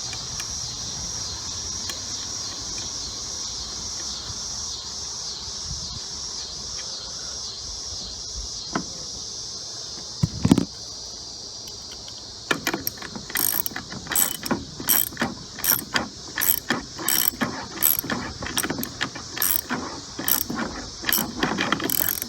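Socket ratchet clicking in quick runs as the steering-wheel nut is tightened, after a single thump about ten seconds in. A steady chirring of crickets goes on underneath.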